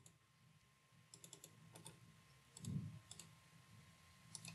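Near silence with a few faint clicks of a computer mouse and keyboard, and one soft low sound near the middle.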